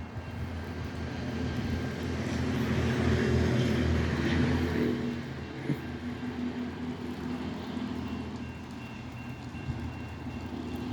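NJ Transit train's diesel engine running as the train passes, a low rumble that swells to its loudest a few seconds in and then eases off.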